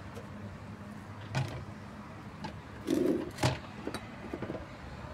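Light handling knocks and clicks of plastic pots: a pink heart-shaped plastic pot is set down onto a round plastic tray, the loudest knock about three seconds in, with a few smaller clicks around it over a steady low background hum.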